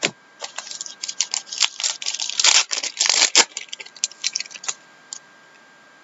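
Trading card packs and cards being handled: a quick run of crinkling, rustling and small clicks, loudest in the middle and stopping just before the five-second mark.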